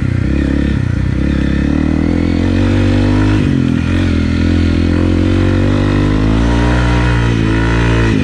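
Honda CRF250 Rally's single-cylinder four-stroke engine, fitted with an FMF PowerCore 4 exhaust, pulling up a dirt hill in first gear. The revs sag about halfway through, climb again and drop near the end.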